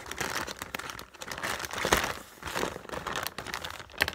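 Plastic mailing bag crinkling and rustling as hands pull it open and rummage through the packets inside, with a sharper crackle about two seconds in.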